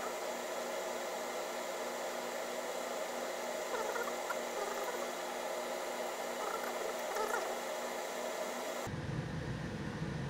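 Steady interior noise of a Solaris Urbino 18 articulated city bus: an even hiss of fans and running gear with a few faint squeaks. Near the end the sound changes abruptly and a low rumble comes in.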